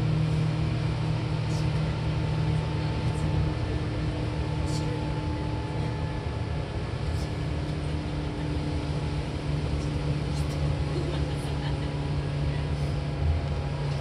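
Seibu 4000 series electric train running, heard from inside the passenger car: steady running noise with a strong low hum and a fainter steady higher tone, and scattered faint clicks.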